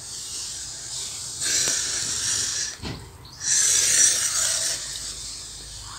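Two long breaths close to the microphone, each a rush of hiss lasting over a second, with a small click between them.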